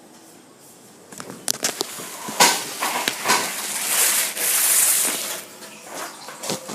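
Tap water running while hands are washed under it, starting after a few small knocks and clicks about a second in and stopping after about three seconds.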